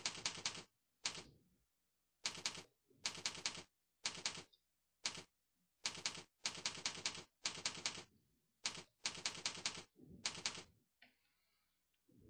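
Computer keyboard typing in quick bursts of keystrokes, with short pauses between the bursts.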